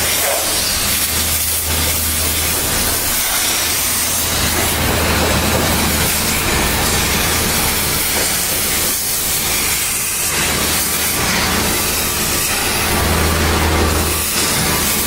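Dry vapor steam cleaner jetting steam in a steady hiss, with a low hum underneath.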